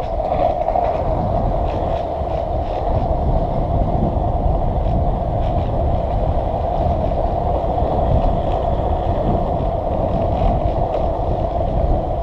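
Skateboard wheels rolling over rough, cracked asphalt: a steady rumble.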